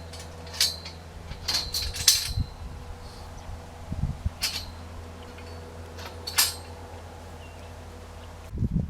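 Several sharp metallic clinks and clatters, spread out a second or two apart and loudest about two seconds in, over a steady low hum; a louder rough noise starts right at the end.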